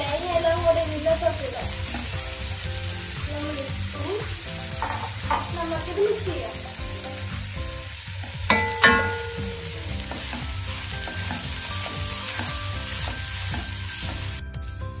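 Wooden spatula stirring and scraping vegetables in a frying pan, with a light sizzle of frying. About eight and a half seconds in come two sharper knocks with a brief ring, the loudest sounds. Faint background music runs underneath.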